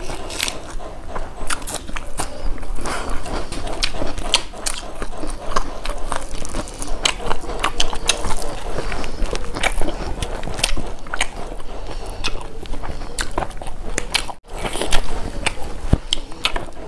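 Close-miked eating sounds from two people: biting and chewing, with crunches of raw onion and many small wet mouth clicks. The sound cuts out briefly about fourteen seconds in.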